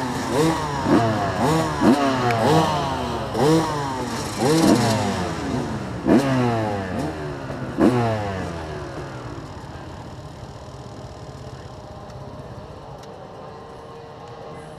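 Motocross bikes lined up at the start gate revving their engines in quick overlapping throttle blips, several a second. About eight seconds in the revving stops and the engines settle to a lower, steady running sound.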